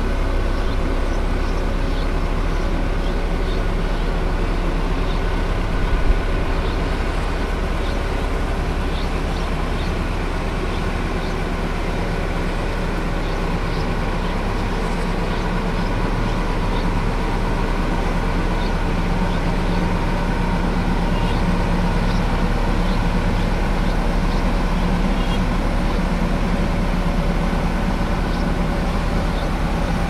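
Heavy vehicle engine running steadily at an even pitch, with one short bump about six seconds in.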